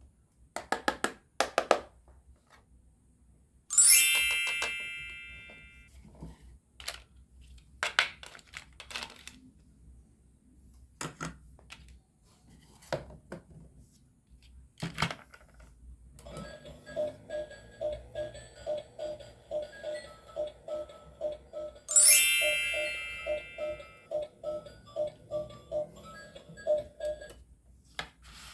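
Plastic toy kitchen pieces and toy food clicking and knocking together as they are handled. A bright ringing ding sounds twice, fading over a couple of seconds, and from about the middle on an electronic toy tone pulses about three times a second.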